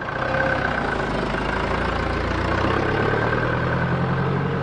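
Small flatbed tipper truck's engine running steadily. Its pitch rises a little about halfway through as the truck moves off.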